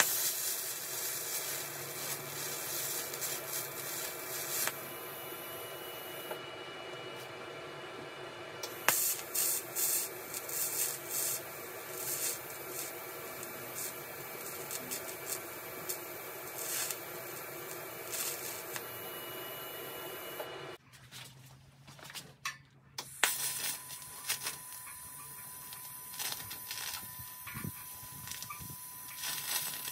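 TIG welding arc on steel chain links: a steady hiss with bursts of crackle that stop and start. There is a short, much quieter break a little over two-thirds of the way in, after which the arc hisses steadily again with a faint hum.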